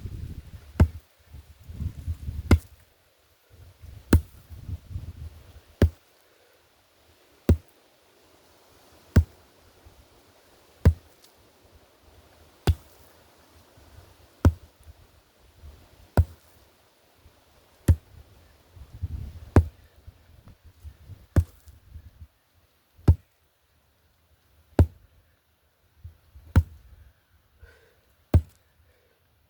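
Sledgehammer strikes in a steady rhythm: about seventeen sharp single impacts, one roughly every second and three-quarters.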